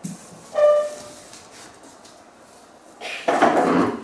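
Cardboard packaging being handled and opened: a brief pitched sound about half a second in, then about a second of loud rustling and scraping near the end.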